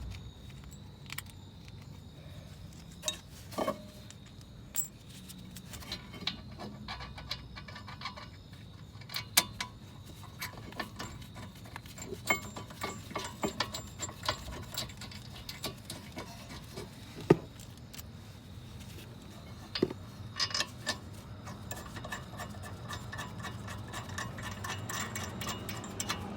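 Irregular metallic clinks and clicks of hand tools and brake parts being handled as a car's brake caliper bracket is refitted over a new rotor, with a cluster of quick clinks near the end, over a steady low hum.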